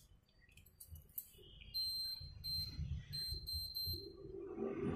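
Two high electronic beeps from an induction cooktop's control panel, each under a second long, over a faint low rumble.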